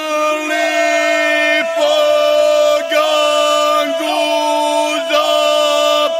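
Ganga, the traditional folk singing of the Imotski region: male voices holding long, loud notes, breaking off briefly and re-entering about once a second.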